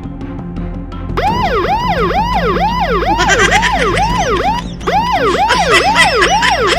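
Electronic police siren in a fast yelp, its pitch sweeping up and down about two and a half times a second; it cuts in about a second in over background music with a steady beat.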